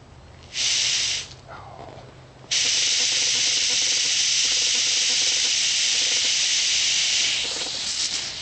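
Muriatic acid bottle bomb venting pressurised gas and vapour: a short hiss about half a second in, then a loud steady hiss for about five seconds that tails off near the end.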